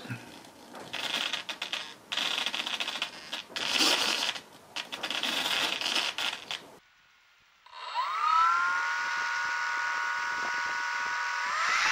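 Small pan-and-tilt gimbal servos buzzing in short irregular bursts as the onboard FPV camera follows head movements. About eight seconds in, the RC model plane's electric motor and propeller spin up to a steady whine, then rise in pitch near the end as the throttle is opened.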